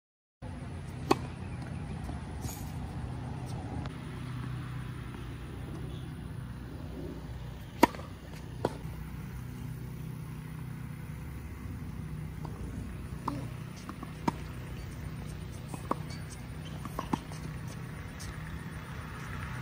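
Tennis ball being struck by rackets and bouncing on a hard court during a rally: sharp, irregular pops several seconds apart, the loudest about eight seconds in, over a steady low background rumble.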